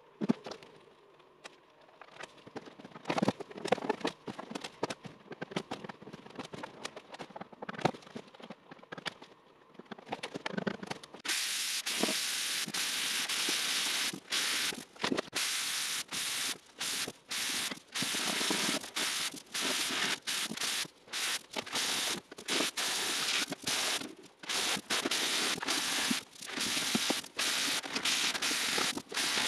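Scattered knocks and clicks of handling, then an aerosol spray can hissing out paint in repeated bursts, each stopped short by a brief gap, from about a third of the way in.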